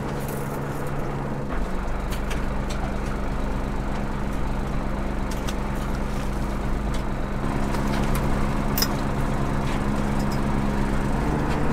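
Fishing boat's engine and hydraulic longline hauler running steadily as the line is hauled aboard. The drone shifts in pitch about a second and a half in, with a few faint clicks.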